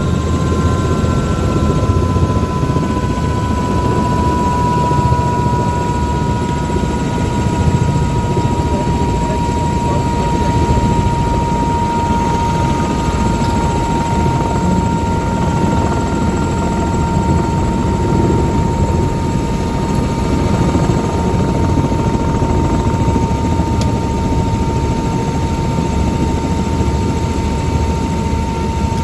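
Tour helicopter running in flight: a steady, loud rotor and engine noise with a thin high whine that drifts slowly lower early on, then holds steady.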